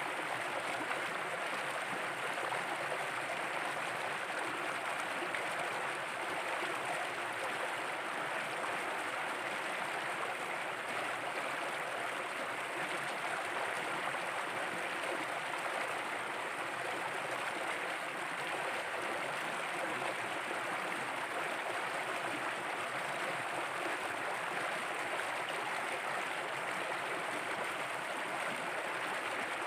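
Shallow stream running over rocks, a steady even rush of water.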